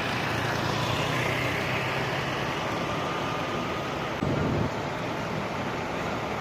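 Road traffic noise: vehicles running past with a steady rush, and a short low thump about four seconds in.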